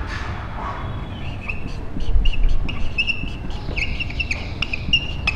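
Marker squeaking and tapping on a whiteboard as a word is written: a run of short, high squeaks and small taps from about a second in.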